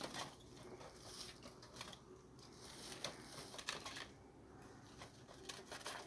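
Faint scattered clicks and rustles as wooden bird cages are handled and tipped open to let the birds out.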